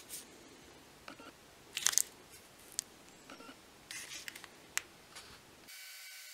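Light clicks and scrapes of a thin metal rod being worked through a drilled hole in a wooden sword handle, the loudest a quick cluster about two seconds in. Near the end the sound cuts to a steady hum.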